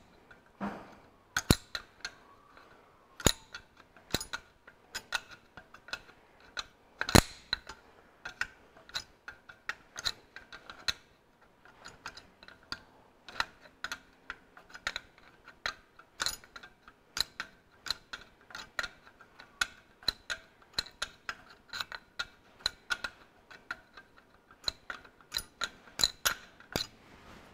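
Steel open-ended spanner clicking against a tight fuel injector pipe union nut as it is worked loose a short turn at a time: a long run of sharp, irregular metallic clicks, a couple a second, the loudest about seven seconds in.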